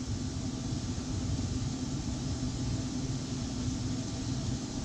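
Steady background hum and hiss with a faint low tone throughout, with no distinct knocks or clicks.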